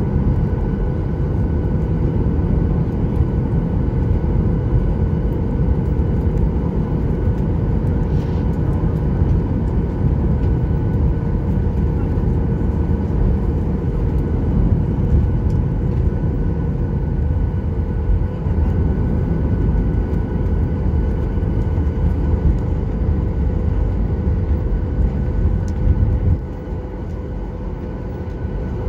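Cabin noise inside a Boeing 737-800 taxiing: steady low rumble with a constant whine from the CFM56 engines at idle. The rumble eases near the end.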